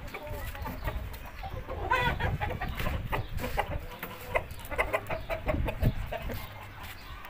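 Chickens clucking in short, scattered calls, with a few sharp knocks and rustling as a rooster is lifted out of a domed wire cage.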